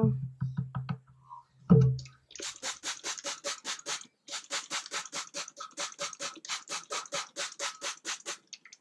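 Trigger spray bottle of warm water pumped rapidly: a quick run of short sprays, about five a second, starting about two seconds in with a brief break near the middle, wetting the wool fibre for felting.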